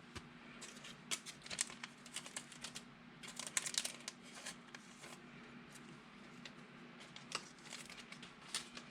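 Faint rustling and light clicks of trading cards being handled and sorted, with a cluster of quick rustles a little before the middle.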